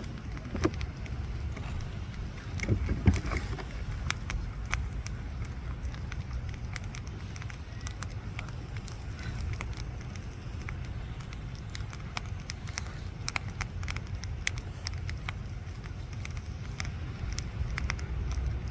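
Wood fire crackling, with frequent sharp, irregular pops, over a steady low rumble.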